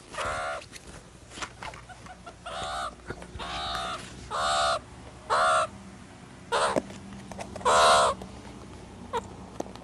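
Meerkat giving a series of short, harsh calls, about seven, spaced roughly a second apart.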